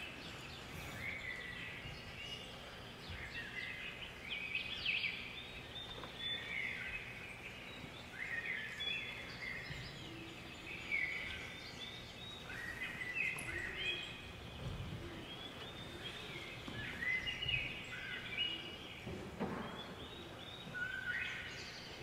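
Birds chirping: many short whistled calls and quick stepped glides, overlapping and repeating throughout. A few soft low thuds come in the second half.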